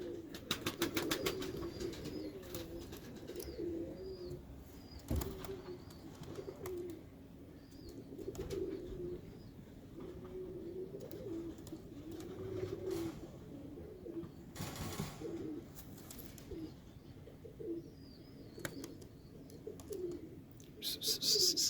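Birmingham Roller pigeons cooing again and again, with a few short flurries of wing flapping.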